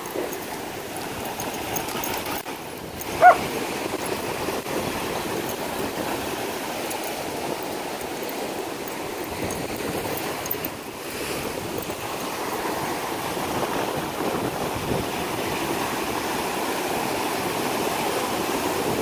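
Ocean surf breaking and washing up the sand: a steady rushing of water that grows a little louder toward the end. About three seconds in, a single short high-pitched cry stands out.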